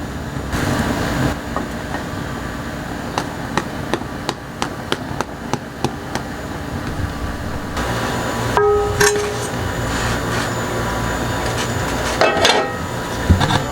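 A run of quick sharp taps and clicks from kitchen utensils against cookware, followed by a couple of brief ringing clinks, over a steady low hum.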